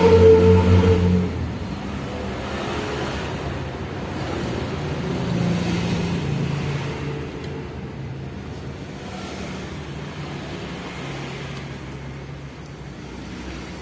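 Suzuki GT750 two-stroke triple engine running. The revs drop about a second in, rise briefly around five to six seconds in, then settle.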